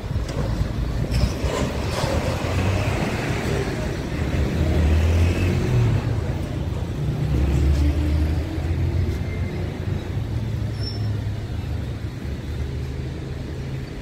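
Street traffic: motor vehicles running and passing, with a low engine rumble that swells twice, about five and eight seconds in.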